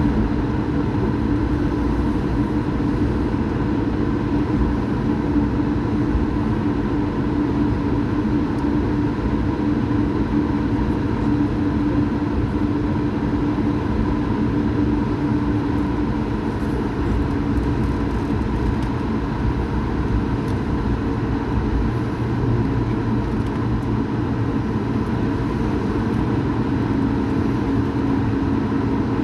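Steady aircraft engine noise: a constant low rumble with a steady hum over it, neither rising nor falling.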